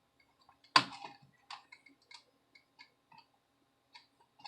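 Small plastic clicks and taps from hands working the laptop's ribbon-cable connector clips, with one sharper click about a second in and several fainter ticks after it.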